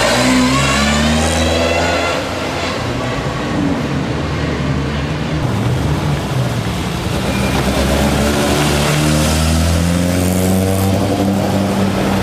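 Historic rally cars driving past one after another, their engines revving and accelerating away; one car pulls away in the first couple of seconds, and another speeds up from about two-thirds of the way through.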